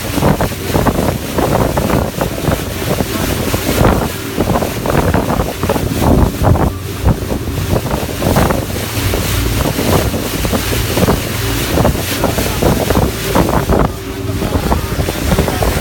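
Strong wind buffeting the microphone in irregular gusts, over the steady rush of sea waves.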